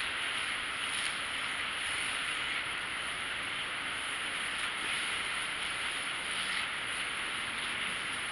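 Steady, even hiss, with faint rustling as fingers work leave-in conditioner through hair.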